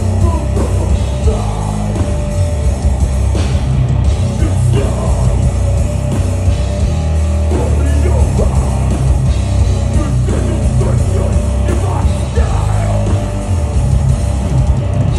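Death metal band playing live through a festival PA, heard from the crowd: distorted electric guitars, bass and drums, with the low end heavy.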